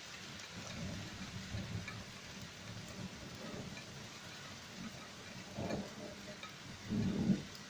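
Steady hiss of rain during a thunderstorm, with a low rolling rumble of distant thunder through the first half. Two louder low rumbles come about five and a half and seven seconds in.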